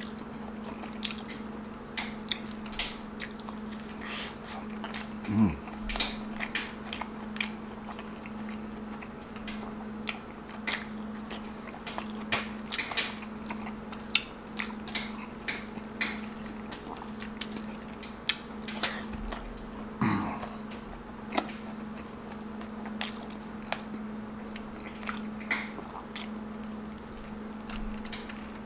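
Close-miked eating sounds of a person chewing beef stew and rice eaten by hand: wet chewing and lip smacking, with many short sharp clicks. A steady low hum runs underneath.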